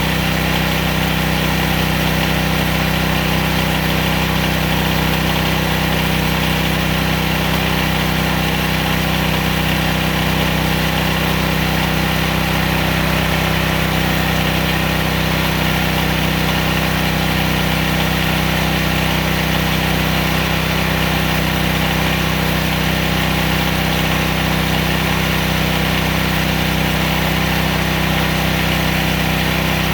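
The 14 hp 420cc single-cylinder engine of a homemade bandsaw sawmill running steadily, driving the band blade, with no change in speed.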